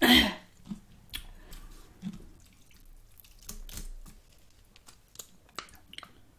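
Mukbang eating sounds: chopsticks clicking in an electric skillet of spicy fire noodle soup, noodles lifted out with broth dripping back into the pot, and soft chewing. A short loud mouth sound right at the start.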